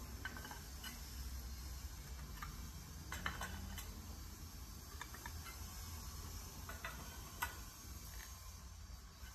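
Faint, scattered clicks and taps of tiles being set into mortar against a metal wire spacer grid, the sharpest about three seconds in and again near the end, over a steady low hum.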